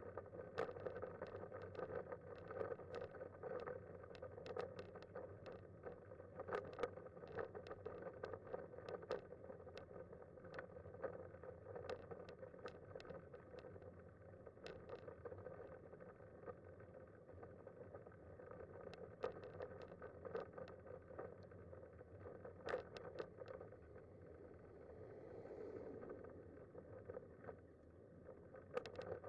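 Manual wheelchair with a FreeWheel front wheel rolling along an asphalt road: a steady rolling noise with frequent sharp clicks and rattles.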